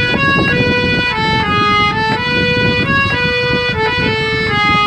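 Instrumental passage of Baul folk music: a melody of held notes stepping up and down, over fast steady percussion.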